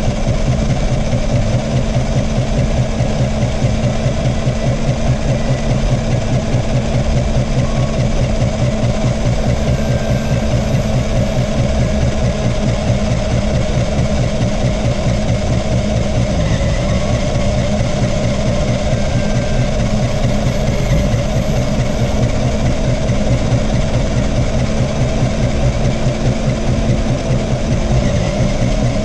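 Radio-controlled off-road car running on sand, its motor and drivetrain making a steady mechanical hum, picked up by the camera mounted on the car.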